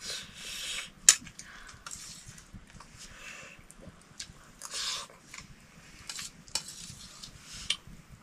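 Clinking and scraping of metal dishes and utensils, in short irregular bursts, with one sharp clink about a second in.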